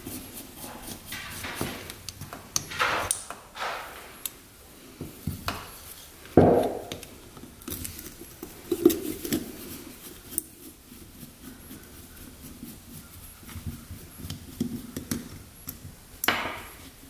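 A screwdriver and an old motorcycle carburettor being handled on a workbench: scattered small metallic clicks, scrapes and knocks, the loudest knock about six seconds in.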